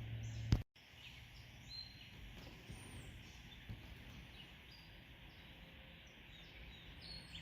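Outdoor ambience: a steady faint hiss with scattered short bird chirps, after a brief knock and a cut about half a second in.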